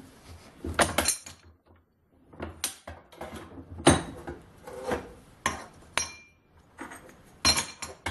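Metal clanks and clinks from a folding steel camp shovel being handled and moved about, a string of separate knocks about a second apart.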